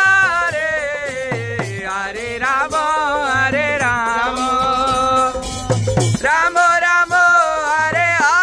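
Devotional kirtan sung in a train coach: a lead voice chanting a melodic devotional mantra, with other voices joining in and light hand percussion keeping time.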